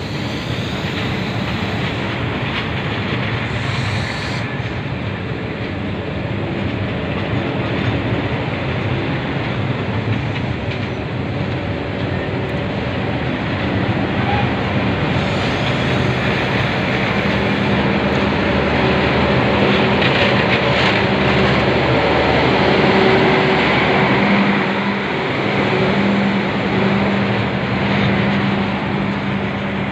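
Passenger coaches of a departing express train rolling past: a steady rush and rumble of wheels on rail that grows a little louder in the second half, joined by a steady low hum about halfway through.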